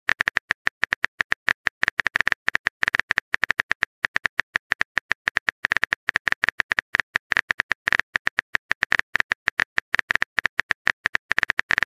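Simulated phone-keyboard typing sound effect: rapid, irregular key-tap clicks, several a second, as a text message is typed out.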